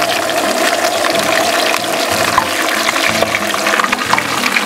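Whole bass frying in a pan of hot oil: a steady sizzle dotted with many small crackles and pops as the moisture in the fish cooks out.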